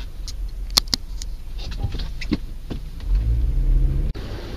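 Car engine and road rumble heard inside the cabin through a dashcam's microphone, with scattered short clicks and knocks. The rumble swells just before an abrupt cut at about four seconds, after which a steadier hiss takes over.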